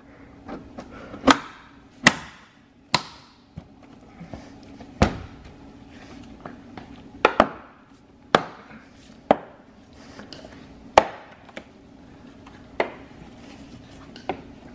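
Plastic headlight lens being pressed onto its housing, its tabs and clips snapping into place: about a dozen sharp clicks at uneven intervals.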